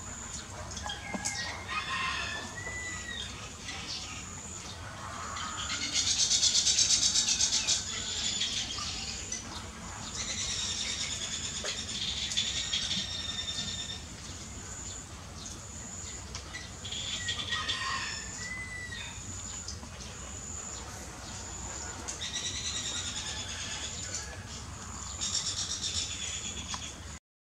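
High-pitched animal squeals and chirps, several calls of a second or two each with the loudest about six seconds in, over a steady high insect drone.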